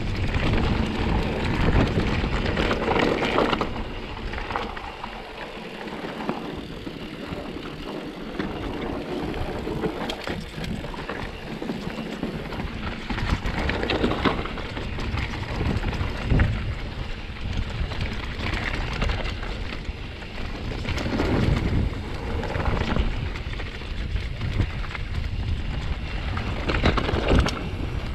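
Mountain bike riding over a rough, rocky trail: tyres crunching and the bike rattling with many sharp clicks, louder in bursts, over a low rumble of wind on the microphone.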